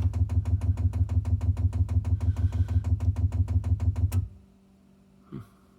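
Chinese diesel heater's fuel dosing pump ticking rapidly and evenly while priming the fuel line with kerosene, then stopping suddenly about four seconds in as the prime cycle ends.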